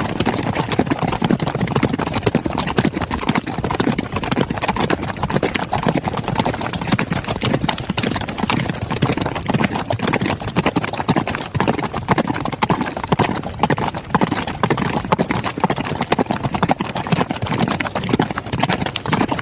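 Horses galloping: a continuous, dense run of hoofbeats at an even loudness.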